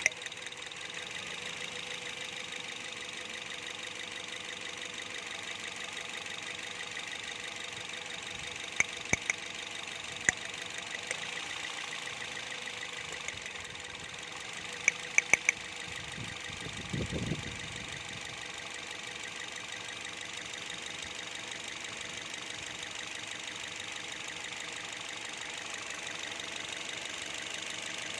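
2014 Toyota Vios four-cylinder petrol engine idling steadily. Several sharp clicks come in quick clusters of two to four near the middle, and a brief low rumble follows shortly after.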